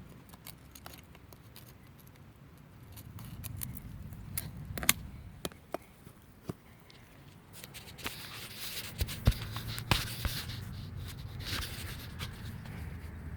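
Crimp pliers working a metal crimp ring off a plastic sprinkler-pipe fitting: scattered sharp clicks and snaps, with scraping about two-thirds of the way through.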